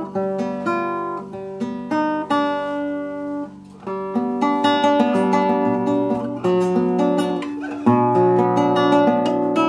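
A newly built Russian seven-string acoustic guitar played solo: plucked melody notes over bass, dropping to a brief lull about three and a half seconds in, then fuller rolled chords.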